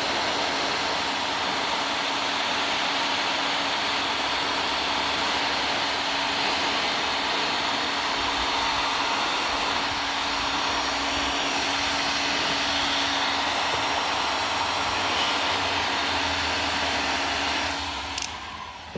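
Electric heat gun blowing steadily with a constant hum while heating heat-shrink tubing. It is switched off about a second before the end and dies away with a click.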